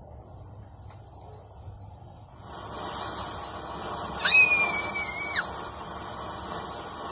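Firework fountain igniting about two and a half seconds in and spraying sparks with a steady hiss. Near the middle, a loud, high, steady whistle sounds for about a second and drops away at its end.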